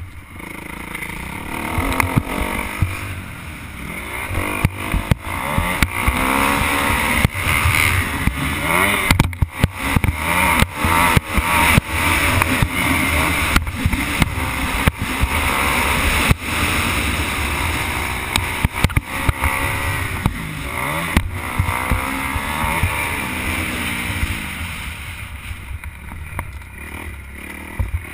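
Motocross bike engine revving up and falling off again and again as it is ridden around the track, heard from a helmet-mounted camera, with wind noise on the microphone and frequent sharp knocks.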